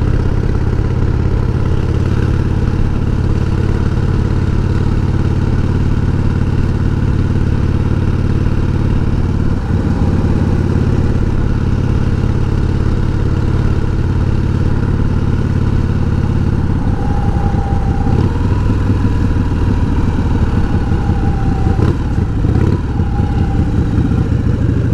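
1988 Harley-Davidson Heritage Softail's V-twin engine running steadily under way with the sidecar rig. The engine note changes about ten seconds in and again around seventeen seconds.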